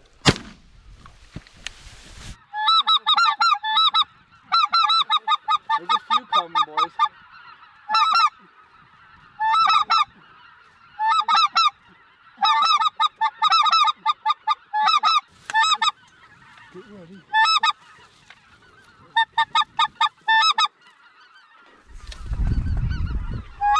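A single shotgun shot right at the start, then geese honking in flight: repeated bursts of rapid, high calls.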